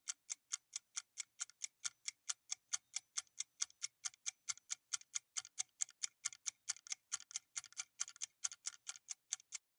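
Quiz countdown timer sound effect: clock-like ticking, about five even ticks a second, which stops just before the time runs out.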